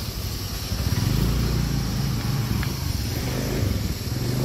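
A motorcycle engine running steadily, a low even hum that grows a little louder about a second in.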